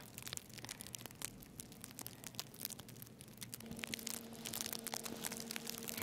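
Snow crunching in quick, irregular crackles as it is trodden or handled. A steady low hum joins about halfway through.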